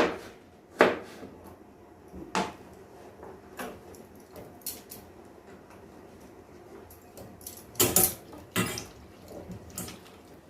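A knife chopping carrots into small pieces: irregular sharp knocks every second or so, with a louder pair about 8 seconds in.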